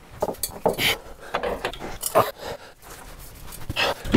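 Scattered clicks, knocks and rubbing as a new rear shock absorber is worked onto its mounting studs by hand.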